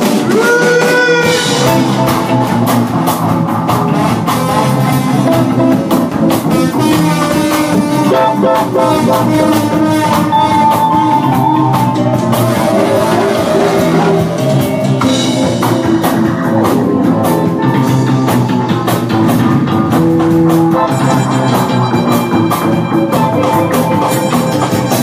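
A live band playing loud music, with drums keeping a steady beat under sustained instrumental and vocal lines.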